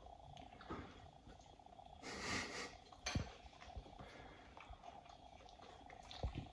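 Quiet sounds of people eating pizza at a table: chewing, a short rustling hiss about two seconds in and a light knock about a second later, over a faint steady hum.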